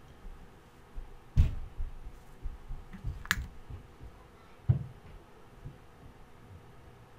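A dotting tool tapping paint dots onto a stretched canvas: scattered soft taps and low knocks, the loudest about a second and a half in and again near five seconds, with a sharper click a little after three seconds.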